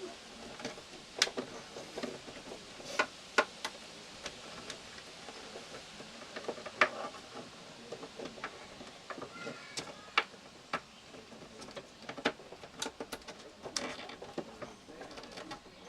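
Scattered sharp clicks and light taps, about fifteen at irregular intervals, over a faint steady hiss.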